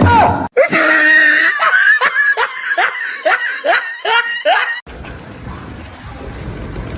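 Hard, high-pitched laughing, a quick run of falling laughs about three a second. It cuts off abruptly about five seconds in and gives way to a steady low background rumble.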